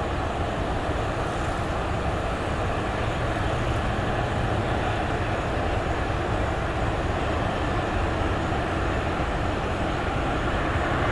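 Steady jet airliner engine noise, an even rushing sound with a faint high whine, rising slightly near the end.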